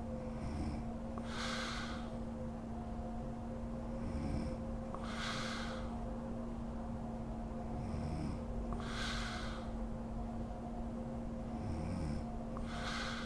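A sleeping woman snoring in slow, regular breaths, about one every four seconds: each breath is a short low rumbling snore followed about a second later by a louder airy, snorting puff, four times over. A steady low hum runs underneath.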